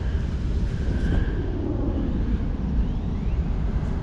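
Steady low rumbling outdoor background noise, with no distinct event standing out.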